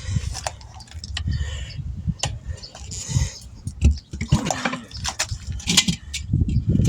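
Soapy water sputtering and bubbling at a tire's bead as air leaks past it, with knocks and clicks from handling the tire and rim, and a short squeak about four and a half seconds in.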